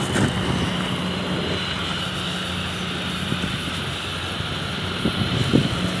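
Gas welding torch flame burning steadily on a leaking iron oil pipe as it is welded with filler rod: a steady rushing hiss over a constant low hum. A short knock sounds about five and a half seconds in.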